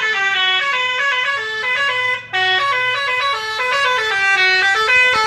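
Bus 'telolet' multi-tone horn playing a quick melody, several horn tones sounding together and stepping up and down in pitch, with one brief break about two seconds in.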